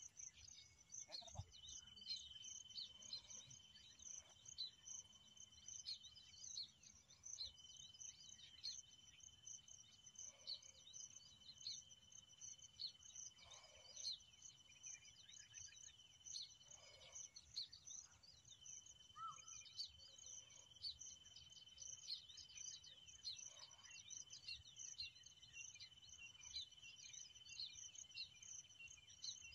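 Faint baya weaver chattering: a dense run of rapid, high chirps, with a steady high-pitched insect-like drone behind it that breaks off twice.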